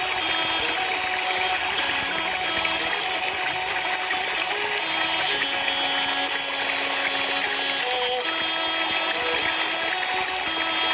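Background music: a slow melody of long held notes, changing pitch every second or two, over a steady hiss.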